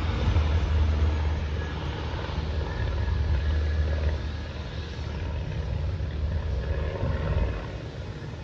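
Jet engines of a United narrow-body twin-jet airliner rumbling steadily as it rolls along the runway, easing off near the end.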